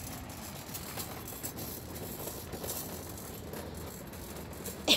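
Metal flatbed shop trolley rattling steadily as it is pushed over asphalt, its wire deck and casters clattering.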